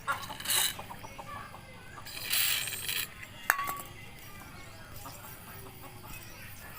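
Metal parts being handled: a single sharp metallic clink with a short ring about halfway through, between brief hissing, scraping noises.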